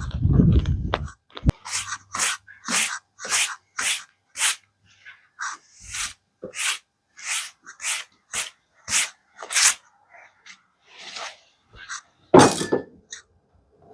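A hand tool working a red cedar log in steady repeated strokes, about two a second, after a few heavy thumps; one more loud knock comes near the end. The strokes cut a flat for the log to sit on.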